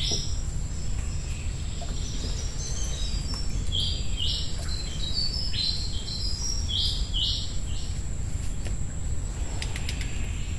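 Night insect chorus: a steady high-pitched buzz of crickets and other insects. About three seconds in, a run of short high chirps comes in, stepping up and down in pitch. Under it all is a steady low hum.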